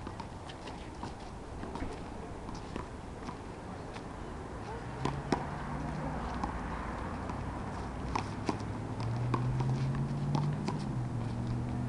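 Sharp smacks of a rubber handball being hit by hand and rebounding off a concrete wall, scattered and uneven, with footsteps on the asphalt court. A low steady hum comes in about five seconds in.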